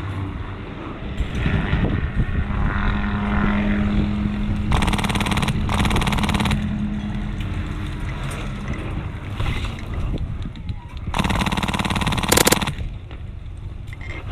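Airsoft gun firing rapid full-auto bursts: two bursts close together about five seconds in, and another about eleven seconds in, over a steady noisy background.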